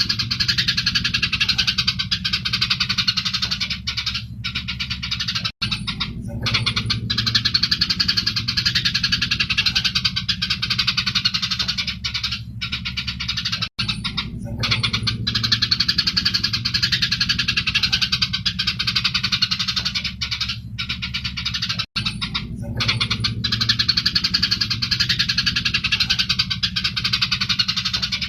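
Eurasian tree sparrows chirping in a dense, continuous, agitated chatter, as sparrows do when squabbling, over a steady low hum. The same stretch repeats about every eight seconds, each time after a brief drop-out.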